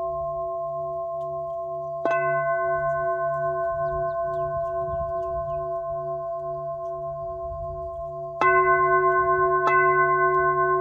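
Crystal singing bowl (a Moldavite bowl in the key of D) struck with its mallet: once about two seconds in, then twice close together near the end. Each strike starts a long, steady ring of several overlapping tones that wobbles slowly in loudness.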